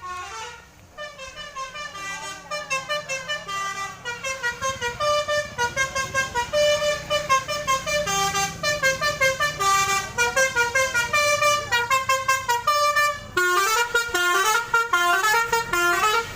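Indonesian telolet basuri bus horn, its roof-mounted trumpets playing a fast melody of short, stepping notes at about four a second, with a brief break near the end before it starts again.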